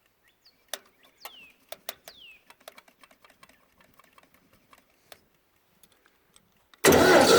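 Scattered light clicks and two short falling squeaks. Then, near the end, a loud steady mechanical noise starts abruptly as the air compressor's cold gas engine is cranked over.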